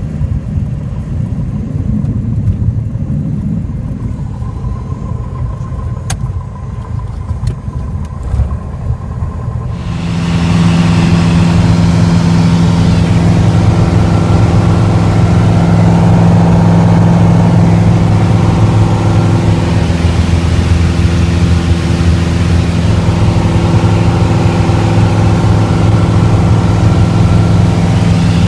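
Cabin noise of a Piper PA-28 light aircraft: a lower, uneven rumble while the plane moves along the runway, then, after a sudden change about ten seconds in, the single piston engine and propeller droning loud and steady in cruise flight.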